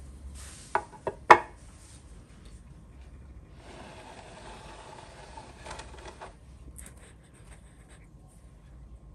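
Three sharp clacks close together about a second in, the last the loudest, as hand tools are handled and set down on the worktable. Then a few seconds of rustling and rummaging as a small plastic container is picked up.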